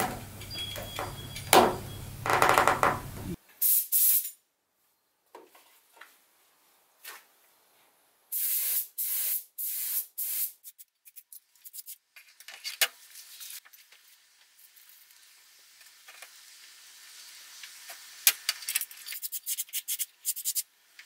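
Spray painting: paint hissing out in short bursts with quiet gaps between them, a group of longer bursts partway through and a quick string of short ones near the end. In the first few seconds, clicks and rubbing as a tail-light lens is pressed into its chrome surround.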